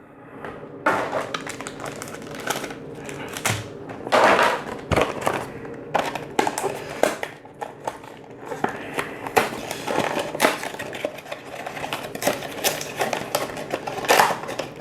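Cardboard and plastic packaging of trading-card special edition boxes being torn open and handled by hand: irregular crinkling, tearing and small taps, going on without a break.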